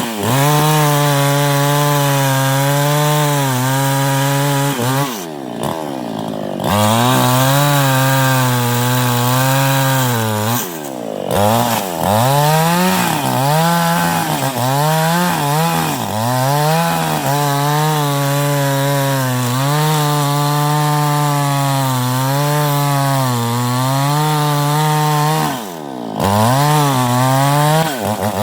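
Newwest 788 gas chainsaw cutting teak at full throttle; the engine pitch sags and recovers again and again as the chain loads up in the cut. It drops briefly toward idle about five seconds in, again near eleven seconds and again near twenty-six seconds, then revs back up.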